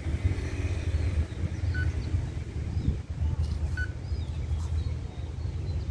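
A steady low rumble with birds chirping, and two short high peeps about two seconds apart.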